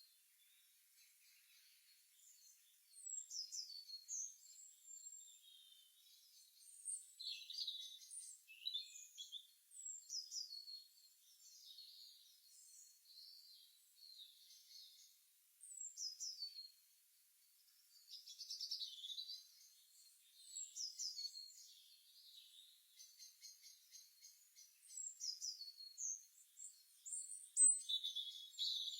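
Songbirds singing and chirping: short, high phrases of quick falling notes, one every two to three seconds with brief pauses between them.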